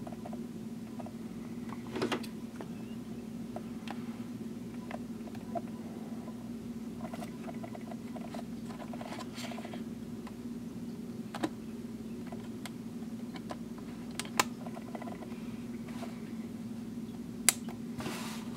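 Steady low hum of room tone with scattered faint clicks and taps from handling. A sharp click comes near the end, then a short rustle as a hand takes up the fountain pen over the paper pad.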